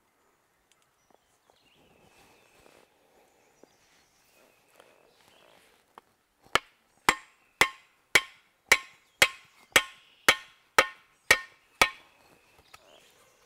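About eleven sharp, evenly spaced strikes, roughly two a second, on the end of a wooden handle as it is driven down into the socket of a steel Cold Steel shovel. Each blow has a short metallic ring. Faint rustling of handling comes before the first strike.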